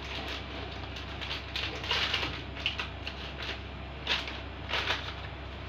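Light scattered rustles and a few soft clicks of kitchen work: a plastic piping bag being opened and handled, with small taps of utensils.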